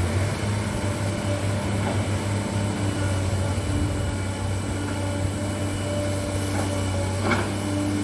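Caterpillar 320D excavator's diesel engine running steadily, with a short knock about seven seconds in.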